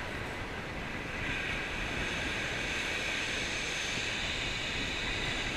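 Steady rushing hiss of surf breaking and drawing back on a shingle beach, mixed with wind, which buffets the microphone with a low rumble.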